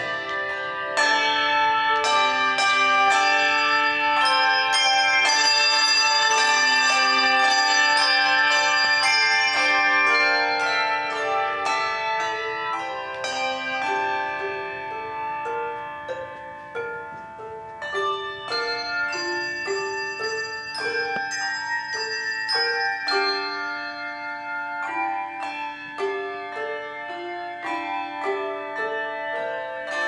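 A handbell choir ringing brass handbells in a piece of music, many bells struck together in chords and runs of notes that ring on after each strike. The playing is loud for the first ten seconds or so, then softer.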